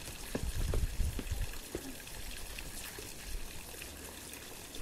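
Footsteps climbing stone steps and dry dirt, with several steps in the first two seconds, over a steady hiss of outdoor background noise.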